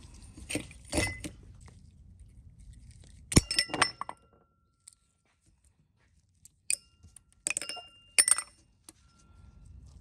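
Small metal carburetor parts clinking against a stainless steel parts tray and the workbench. The sharp clinks ring briefly and come in a few clusters: near the start, about three and a half seconds in, and again around seven to eight seconds in.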